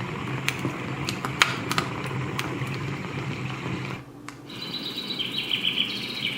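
Etekcity white noise machine playing its crackling-fire track through its small speaker: sharp crackles over a steady hiss. About four seconds in it switches to the next track, where birds chirp.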